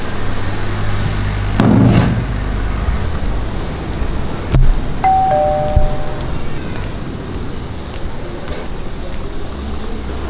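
Two-tone electronic doorbell chime, a higher note falling to a lower one (ding-dong), rung once about five seconds in as a visitor arrives. A short rustle comes about two seconds in and a sharp click just before the chime.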